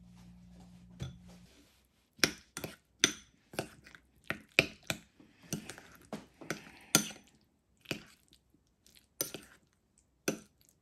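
Kitchenware clinking and knocking: a string of sharp, irregular taps of dishes and utensils, about fifteen over several seconds. A low steady hum cuts off about a second and a half in.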